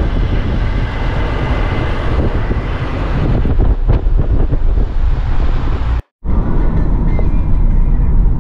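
Wind rushing over the microphone and road noise from a van driving at motorway speed, a steady low rumble and hiss. The sound drops out for a moment about six seconds in, where the footage cuts.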